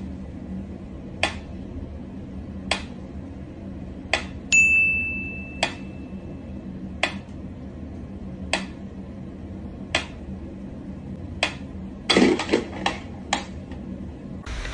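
Mechanical pendulum metronome ticking slowly and evenly, about one tick every second and a half. A single bright ringing ping sounds about four seconds in, and near the end a quick cluster of knocks comes, after which the ticking stops.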